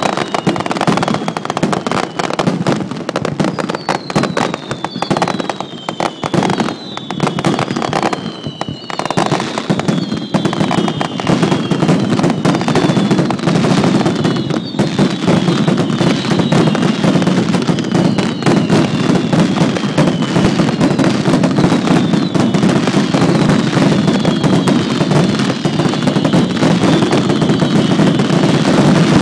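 Set-piece fireworks burning: a dense crackling with a steady low rumble underneath and repeated shrill whistles that each fall in pitch. The sound thickens and grows louder about ten seconds in.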